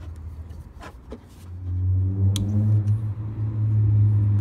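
A steady low engine hum, like a nearby motor vehicle running, growing louder about a second and a half in. A few sharp clicks come from the hex wrench working the stock bolt of the shotgun.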